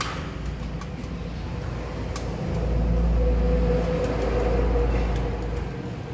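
Low engine rumble of a passing motor vehicle, swelling about two and a half seconds in and fading near the end, over a few light clicks of plastic tubing being handled.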